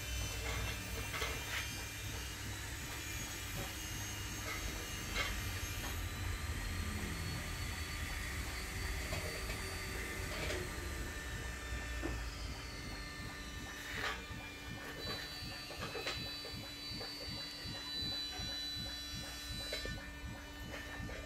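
Low steady hum and buzz, heaviest in the first few seconds, with a few scattered knocks and clicks.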